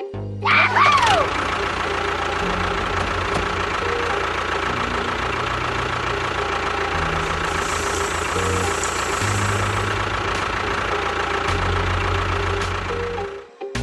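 Engine running steadily, a dense even mechanical drone, with a short sliding tone about half a second in.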